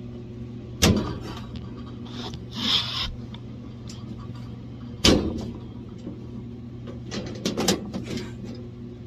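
Sheet-metal furnace cover being knocked and shoved against the cabinet: two sharp clanks with a scrape between them, then a quick run of smaller knocks, as the cover's clips fail to seat in the bent cabinet. A steady low hum from the running furnace blower lies under it.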